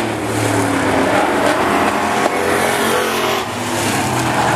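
Engines of several demo-class pickup trucks racing on an oval track, a loud, dense, steady engine noise, with one brief knock a little over two seconds in.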